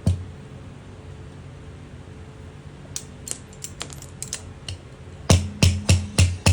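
A single thump, then scattered light clicks, then from about two-thirds of the way in a loud run of heavy knocks, about three a second, each with a short low ring.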